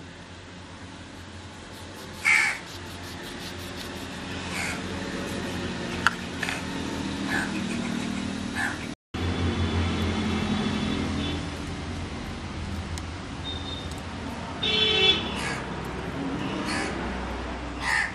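Crows cawing every few seconds, the loudest calls about two seconds in and near the end, over a low steady engine rumble.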